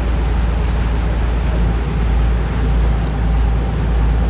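Catamaran tour boat's engines running under way, a steady low rumble with wash and air noise over it.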